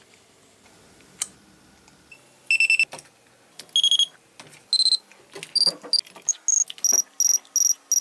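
Electronic alarm of a miniature alarm-clock keychain beeping, after a click about a second in: short shrill beeps that start about a second apart, then come quicker and higher in pitch toward the end.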